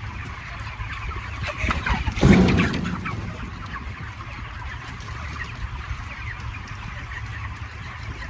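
A house full of 35-day-old broiler chickens clucking and chirping over a steady low hum, with one loud clatter about two seconds in.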